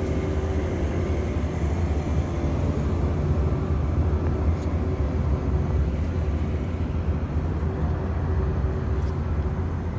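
Steady low rumble of motor traffic and engines, with no distinct events.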